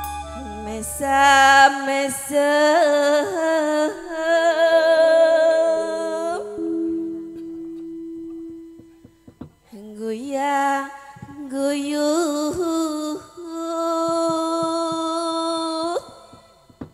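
A woman singing a Javanese langgam in campursari style through a microphone, with long held notes that waver in pitch, over an electric keyboard. The voice breaks off about six seconds in while the keyboard plays alone, then comes back about ten seconds in and holds a last long note until it stops shortly before the end.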